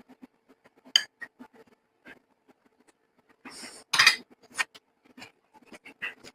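Cutlery clinking and scraping against a plate as a meal of rice and dal is served and mixed, with small clicks throughout. There is a sharp clink about a second in and a louder clatter around four seconds.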